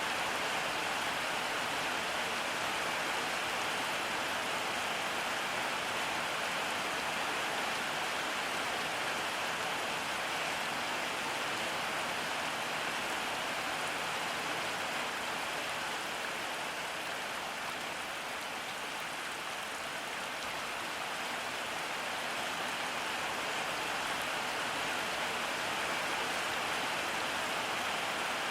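Steady rain falling, an even dense hiss of drops on surfaces, easing slightly about two-thirds of the way through.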